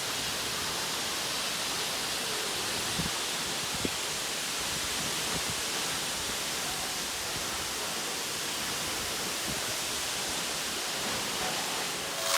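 Steady, even rush of Wli Falls, Ghana's tallest waterfall, pouring down.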